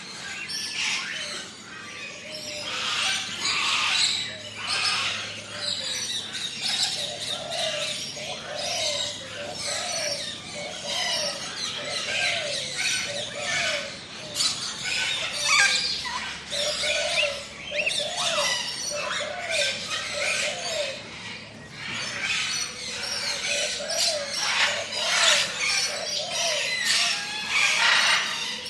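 A chorus of tropical birds calling at once: dense high chirps, whistles and squeals overlapping throughout, with runs of a lower, arched call repeated about twice a second.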